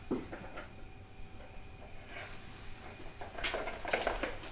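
Quiet room with a faint knock just after the start, then a short run of rustling and light clattering near the end as a plastic rat house is carried and handled.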